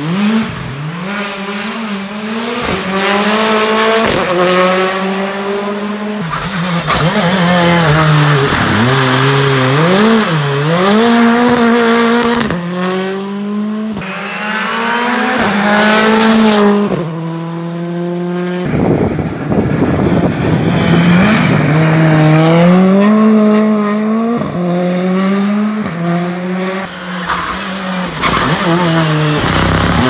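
Hyundai i20 R5 rally car's 1.6-litre turbocharged four-cylinder engine driven flat out through corners, revving up and dropping back again and again with fast gear changes, over several passes.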